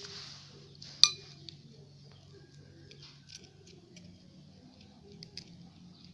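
A utensil clinking and tapping against a container while clear slime is stirred: one sharp clink about a second in, then light scattered clicks.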